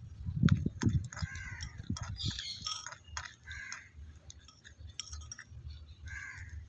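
Crows cawing several times, with low rumbling thumps loudest about half a second in. Light clinks of a small metal spoon against a miniature clay pot come with them.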